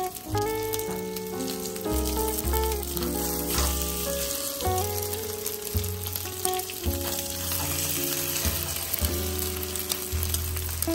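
Chicken-mince patties frying in olive oil in a nonstick pan: a steady sizzle with small crackling spatters. Background music with plucked notes and a bass line plays along with it.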